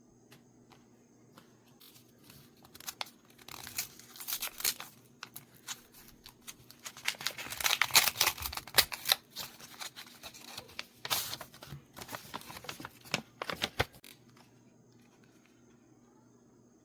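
Mail packaging being torn open and crinkled by hand, a run of crackling rips and rustles that starts about two seconds in, is busiest in the middle and stops a few seconds before the end.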